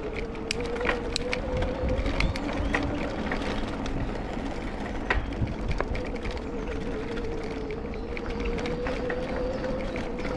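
Electric bike riding over cobblestones: a steady motor whine that rises slightly in pitch, with the tyres rumbling and the frame rattling in frequent clicks and knocks as the wheels jolt over the stones.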